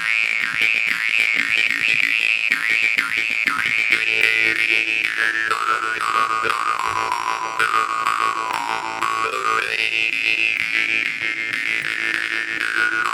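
Mohan morchang jaw harp played on one steady drone, its overtones swept up and down by the mouth in a twangy, 'boing'-like wah. The first few seconds go in quick rhythmic pulses, then slower swooping glides.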